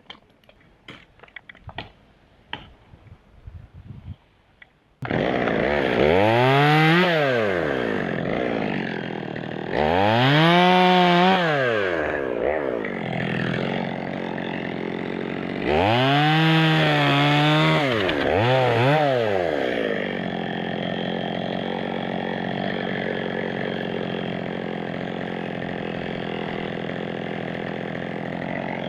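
Faint clicks and knocks, then about five seconds in a two-stroke chainsaw comes in and is revved up and back down three times, with one short blip. It then settles to a steady idle.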